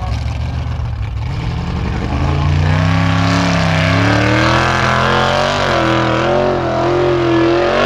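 Formula Offroad buggy's engine revving hard under load as it climbs a steep dirt hill. Its pitch rises about two seconds in, then surges up and down with the throttle.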